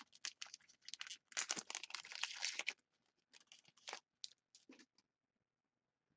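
Wrapper of a hockey trading card pack being torn open and crinkled, a quick run of crackles that stops about five seconds in.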